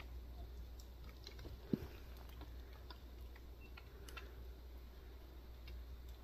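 Faint, scattered small clicks and ticks over a steady low rumble, with one short, sharp thump a little under two seconds in.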